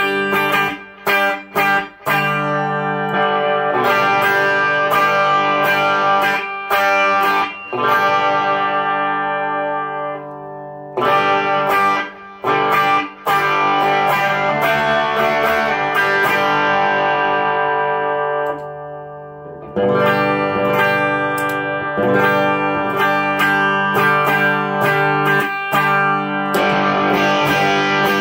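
Single-coil Fender Stratocaster played through effects pedals into a Fender Twin Reverb amp. It opens with short chord stabs, then twice lets chords ring out and fade before strumming again.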